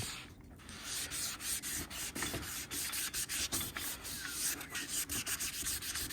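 A plastic car headlight lens being wet sanded with a 600-grit wet-and-dry pad: quick, rhythmic rubbing strokes, about four a second, starting about a second in.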